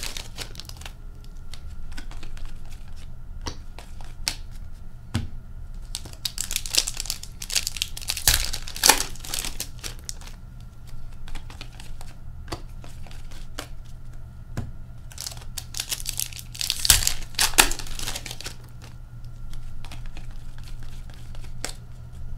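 Upper Deck hockey card pack wrappers crinkling and tearing open in bursts every few seconds, the loudest about a third of the way in and again near three quarters through. Between the bursts come small clicks and rustles of cards being shuffled in the hand.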